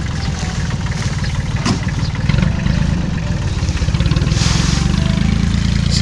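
Small farm tractor's engine running steadily, a low pulsing drone.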